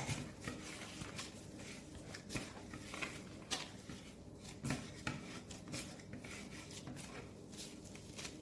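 Hands kneading samosa pastry dough on a work surface: faint, irregular soft presses, rubs and dull taps.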